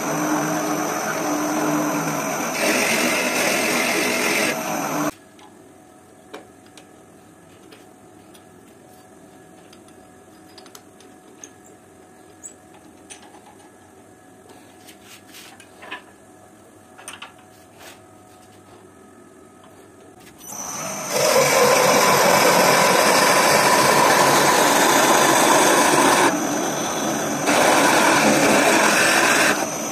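Wood lathe running while a drill bit in the tailstock chuck bores into a spinning walnut blank; the lathe stops about five seconds in. Then small metallic clicks and taps as a drill chuck is opened with its key and a wider boring bit is fitted, and around twenty seconds in the lathe runs again as the new bit bores into the end grain, easing off briefly near the end.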